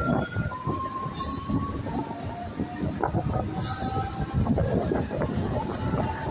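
MEMU electric train running on the rails, its wheels squealing with thin, slightly wavering whines over the rumble and clatter of the coach. A few short hissing bursts come through about a second in, midway and near the end.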